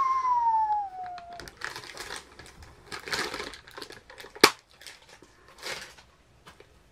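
A short whistle falling in pitch, then crinkling and rustling of a clear plastic packaging bag as it is worked open by hand, with one sharp snap about four and a half seconds in.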